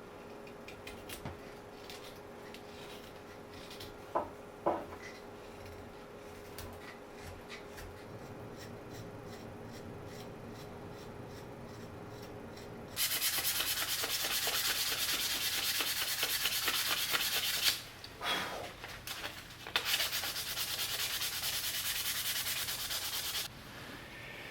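Sanding of a walnut saya (wooden knife sheath): two loud, steady stretches of sanding of about five and four seconds in the second half, after quieter light scraping and a few taps.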